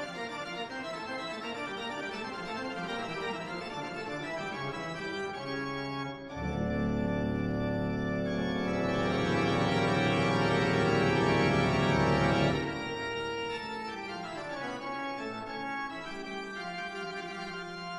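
Organ music with sustained chords. About six seconds in it swells into a fuller, louder chord with deep bass, then thins out again around twelve seconds.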